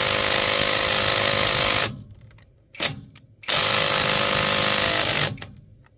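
Bauer brushless 3/8-inch cordless impact wrench hammering on a truck's lug nut. It runs in two bursts of about two seconds each, the first stopping about two seconds in, with a short blip of the trigger between them.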